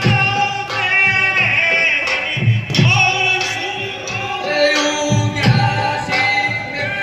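Rajasthani rammat folk-theatre singing: voices singing drawn-out lines through a microphone and loudspeakers, with drum strokes underneath.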